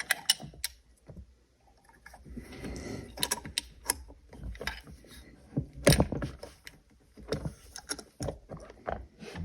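Irregular metal clicks, knocks and scraping as a Robur safe deposit lock and its hardware are handled and worked at by hand, with a scraping stretch a couple of seconds in and one sharper knock about six seconds in.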